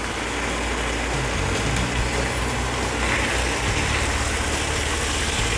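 Potatoes, tomatoes, green chillies and vegetable stems sizzling steadily in spiced oil in a frying pan, with a low steady hum underneath.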